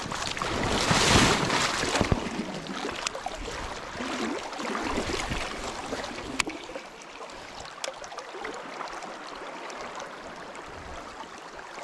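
Small river's current rushing over shallow riffles in a steady wash. A louder burst of rushing noise fills the first two seconds, and a few faint sharp clicks come later.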